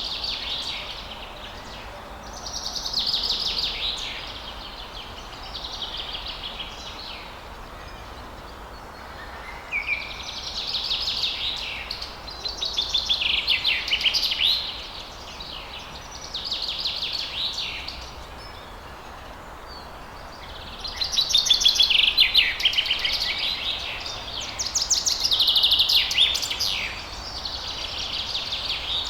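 A songbird singing phrases of rapid trilled notes, each a second or two long and repeated every few seconds, over a steady hiss of falling water.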